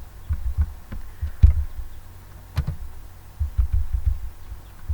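Irregular low thuds with a few faint sharp clicks scattered among them.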